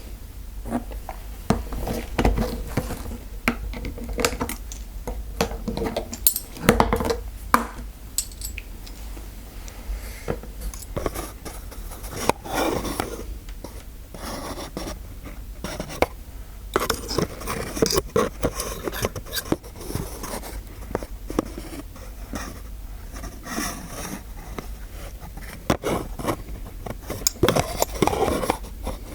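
Metal dental instruments clinking and scraping in irregular, close-up taps and scrapes.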